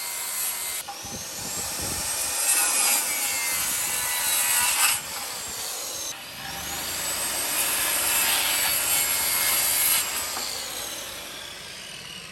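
Power saw cutting wood in two runs of about four seconds each, each starting with a rising whine as the motor spins up and then holding steady, followed by a fainter stretch near the end.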